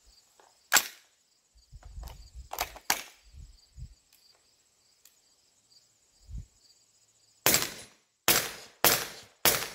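Four suppressed subsonic 300 Blackout shots from a Q Sugar Weasel AR pistol, firing 220-grain handloads in quick succession near the end, well under a second apart. A single sharp click comes about a second in.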